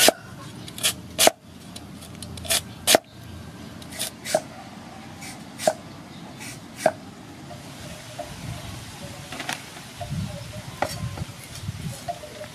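A knife chopping on a cutting board in single, irregular strokes: about nine sharp chops in the first seven seconds, then softer knocks and handling.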